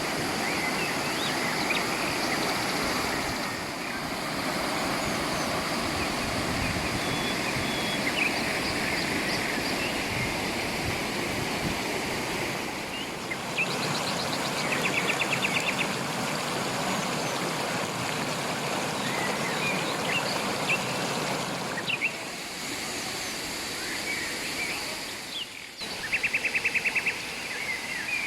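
River water rushing steadily over rocks, with birds chirping now and then. A fast buzzy trill sounds twice, about halfway through and again near the end.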